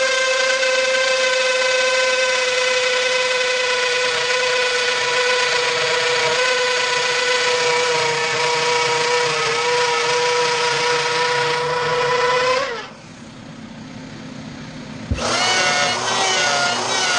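Electric router running with a steady high whine as it cuts slots. About thirteen seconds in it is switched off and winds down with falling pitch. Two seconds later there is a thump and it starts up again, its pitch wavering as the bit cuts.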